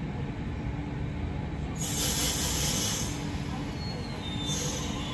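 Sydney Trains double-deck electric train standing at the platform, running with a steady low hum and rumble. A loud burst of air hissing comes about two seconds in and lasts about a second, and a shorter one comes near the end.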